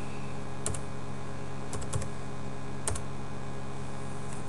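Computer keyboard keystrokes: about four scattered key presses over a steady low hum.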